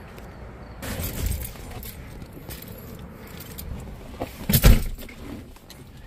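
Keys jangling and the handling of a Lincoln Town Car's door as someone gets in. The door shuts with a loud thud about four and a half seconds in.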